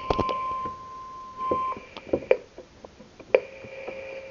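Weather radio receiver beeping: a steady high beep tone ends about one and a half seconds in, with several sharp clicks scattered through. About three seconds in, a louder click is followed by a lower steady tone.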